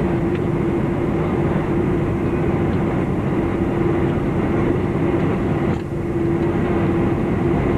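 Cabin noise inside a Boeing 747-400 taxiing: steady rumble of the engines and airframe with a constant hum, which dips briefly about six seconds in.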